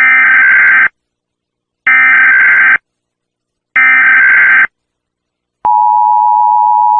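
Emergency Alert System opening: three identical bursts of warbling digital data tones (the SAME header), each just under a second long and about two seconds apart. After them comes the steady two-tone EAS attention signal, which starts about five and a half seconds in.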